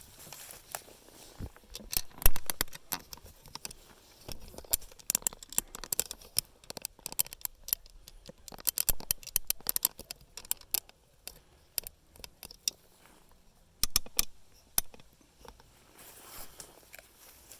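Irregular sharp clicks, crackles and scrapes, coming in dense clusters with short lulls between; no engine is running.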